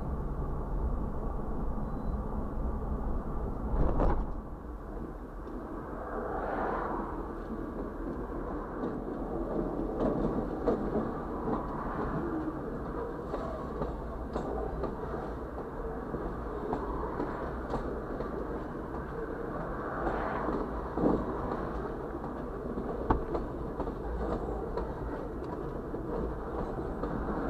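Road noise from the moving vehicle for the first few seconds, then a freight train rolling slowly past close by, heard muffled from inside a vehicle. A locomotive and a line of covered hopper cars go by with a steady rumble, swelling now and then, with scattered clicks from the wheels.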